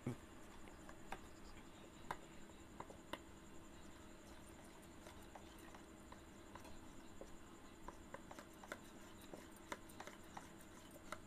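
Faint scraping and scattered light clicks of a spoon stirring thick besan (gram flour) batter in a steel bowl.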